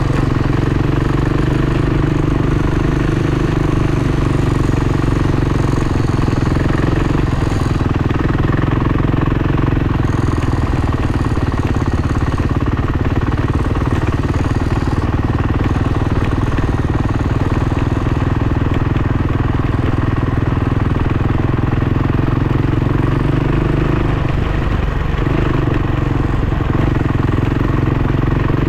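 Dirt bike engine running steadily at low, even revs, with little rise or fall in pitch.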